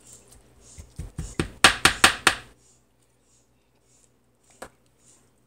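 A slotted metal spatula chopping down through a baked casserole and knocking against the bottom of a stainless steel skillet: a quick run of about seven sharp strikes, then a single lighter knock a couple of seconds later.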